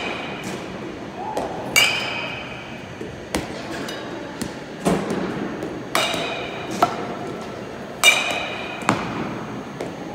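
Metal baseball bat striking pitched balls with a ringing ping, three times, with shorter sharp knocks between the hits.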